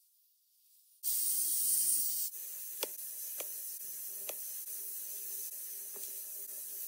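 After a near-silent first second, a steady hiss of background noise with a faint hum, and four light ticks of steel tweezers setting small watch parts down in a plastic parts tray.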